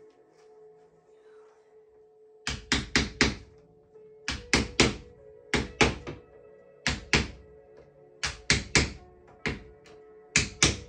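Wooden mallet striking a wooden wedge to drive the spline of a pressed cane seat into the chair's groove. The sharp knocks start about two and a half seconds in and come in quick groups of three or four, a group a little over once a second.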